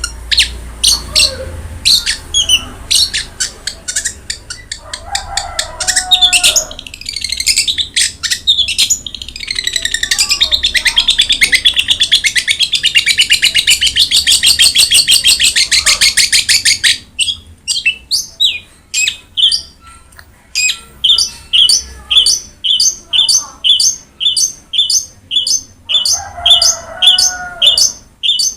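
Long-tailed shrike (cendet) singing loudly in varied shrill phrases. A long, fast trill lasts about seven seconds near the middle, then gives way to a run of sharp repeated notes about two a second. Two lower warbled phrases are mixed in.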